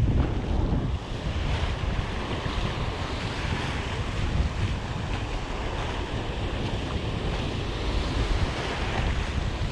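Ocean surf breaking and foamy wash running over the sand, steady throughout, with wind noise rumbling on the microphone.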